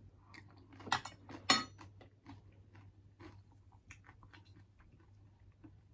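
Close-miked eating of lentil soup: soft chewing and small mouth clicks, with two sharper clicks about a second in, the second one ringing briefly.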